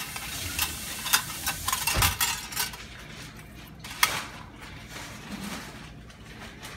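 Handling noise from surgical instruments and gloved hands: scattered light clicks and clinks over a soft crackle, with a sharper knock about two seconds in and another click about four seconds in, growing quieter after about three seconds.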